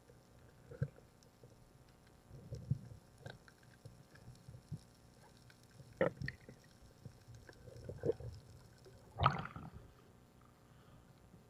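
Faint, scattered muffled knocks and bubbling heard through an underwater camera during a night dive, with a louder splash about nine seconds in as the diver breaks the surface.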